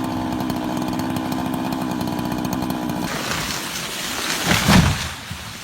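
Chainsaw engine running at a steady high speed for about three seconds, then giving way to a noisier rush with one loud swell about four and a half seconds in, fading near the end.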